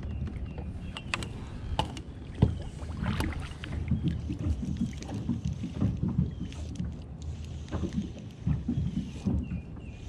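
Wind buffeting the microphone and water against a plastic kayak, with scattered clicks and knocks from a spinning reel being cranked during a retrieve. The sharpest knock comes about two and a half seconds in.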